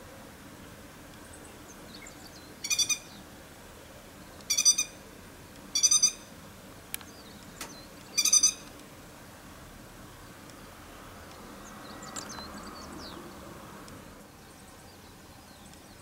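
Grey-headed lapwing giving four short, harsh, rattling calls, about two seconds apart.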